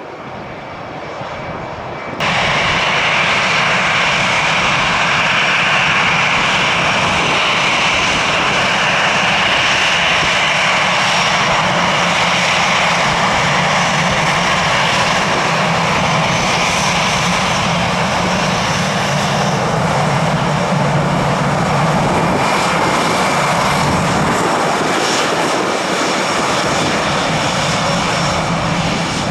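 Jet airliner's turbofan engines running loud and steady, with a whine high in the sound. They cut in abruptly about two seconds in.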